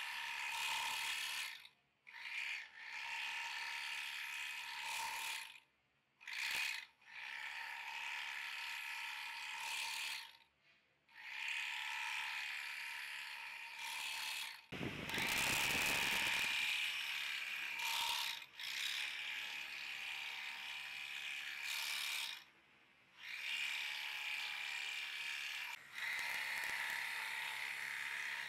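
Electric twin-needle, two-thread bag closer sewing machine chain-stitching across the tops of woven sacks: a steady mechanical whir in runs of a few seconds, stopping briefly between runs several times.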